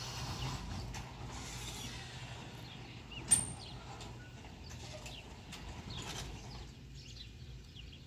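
Electric overhead garage door closing: the opener and the door rollers run steadily as the panels travel down the track. A single sharp click a little past three seconds in is the loudest moment.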